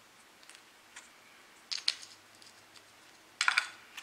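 Two short scratchy handling sounds, about two seconds in and again near the end, as fingers press and rub together two thin wooden rail strips freshly touched with super glue.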